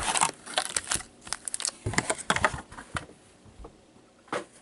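Trading card packs' wrappers crinkling and rustling as a stack of packs is handled, with many small clicks and taps; the handling thins out after about three seconds, with one last short rustle near the end.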